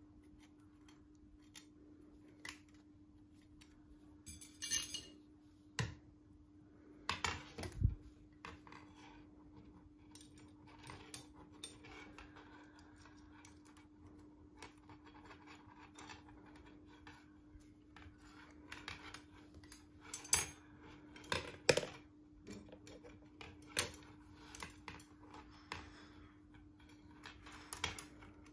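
Small brass lamp parts (a hinged bracket, thin rods and screws) clicking and clinking against each other as they are handled and fitted together, in scattered sharp clicks with louder knocks about five and eight seconds in and again around twenty to twenty-four seconds in. A steady low hum runs underneath.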